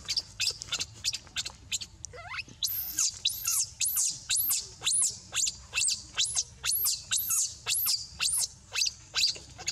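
Baby macaque screaming in distress, a rapid run of short, high-pitched squealing cries, two or three a second, each rising and falling in pitch.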